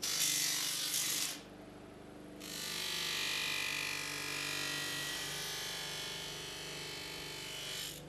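Bench buffer motor running while a bar of buffing compound is pressed against its spinning sewn buffing wheel, loading the wheel with compound: a hissing scrape over the steady motor hum, briefly at first and then again, longer, from about two and a half seconds in.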